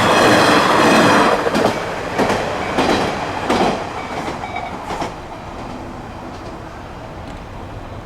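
A Hachikō Line diesel railcar passes over the level crossing, its wheels clacking over the rail joints. The train noise is loudest in the first few seconds, then fades away from about five seconds in.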